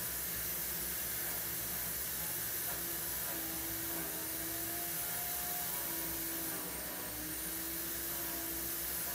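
Steady, even hiss of background noise with a faint wavering hum underneath; no distinct events.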